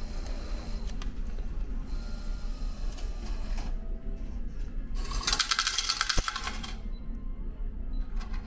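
Money-changing machine paying out yen coins: a rapid rattling run of coins dropping into its plastic tray for about a second and a half, a little past the middle.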